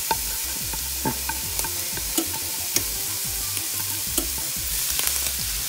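Steady sizzling from a skillet of collard greens, onion and bacon fat as cooked rice is tipped in, with scattered light ticks and taps of a spatula scraping the rice from a bowl into the pan.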